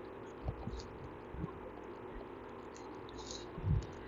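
Faint steady hum with a few soft, short low taps and a light scratch: a stylus working on a pen tablet during handwriting.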